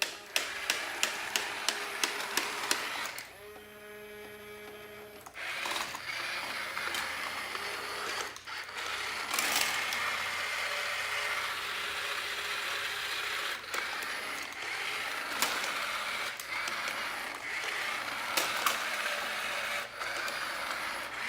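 Small electric motor and gears of a toy bulldozer running. It starts as a quick run of clicks, then whirs for about two seconds, then gives a long grinding, crackling noise with scattered sharp clicks.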